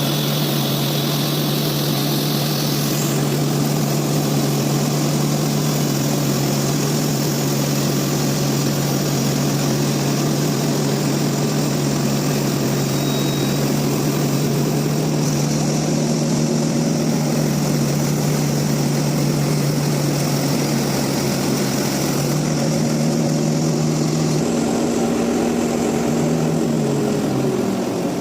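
Sawmill machinery running steadily: a loud, even mechanical drone with a steady hum. The hum's pitch falls near the end as the machine slows.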